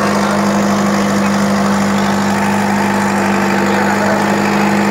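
Mahindra Arjun tractor's diesel engine running steadily, one unchanging engine note, with crowd noise beneath.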